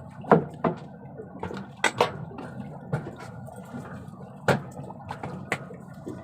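Water sloshing and splashing aboard a fishing boat, with about six sharp slaps spread through it.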